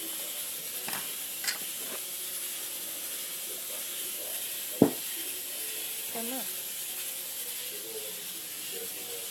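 Microwaved slime being handled and tested: faint sticky clicks over a steady hiss, with one sharp click about five seconds in.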